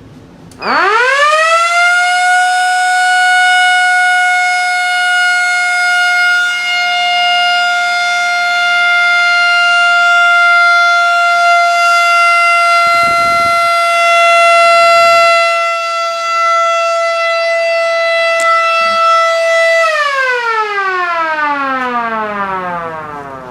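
Fire alarm siren set off from an emergency push station. It winds up about a second in to a steady high wail that slowly loses pitch as it holds, then winds down in a long falling glide over the last few seconds.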